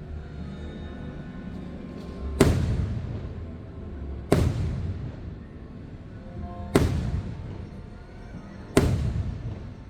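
Fireworks bursting overhead: four sharp bangs about two seconds apart, each trailing off in a rumbling echo, over the show's orchestral soundtrack playing steadily beneath.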